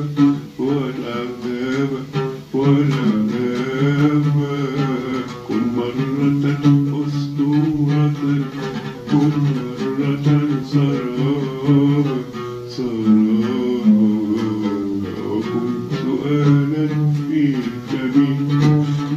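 An elderly man sings an Arabic melody, holding long notes that waver and bend, and accompanies himself on the oud with plucked notes: a home rehearsal of the song with voice and oud alone.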